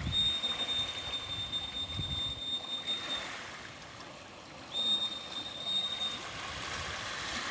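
Outdoor wind and water ambience with a low rumble of wind on the microphone. A steady high-pitched tone sounds twice over it, for about three seconds from the start and again for about a second and a half shortly before the end.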